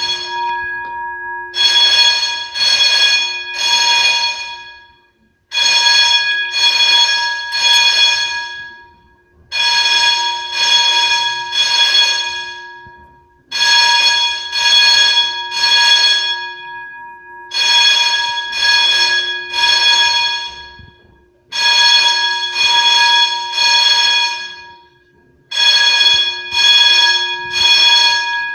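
Simplex fire alarm sounding loudly in the temporal-three evacuation pattern: three short blasts, then a pause, repeating about every four seconds, seven times over. Each group of blasts rings out and fades before the next.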